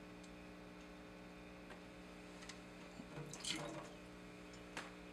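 Faint dripping and trickling of water in a small aquaponics fish tank over a steady low hum, with a brief louder spell of trickling about three seconds in.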